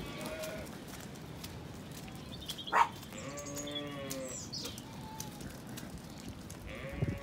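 Zwartbles sheep bleating, a few short calls and one longer call in the middle, with a sharp knock just before the long call.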